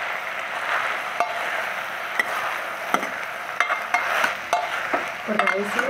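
A steel ladle stirring and scraping rice, paneer and vegetables in oil in a pressure cooker, over a steady sizzle of frying. There are several sharp clinks as the ladle knocks against the side of the pot.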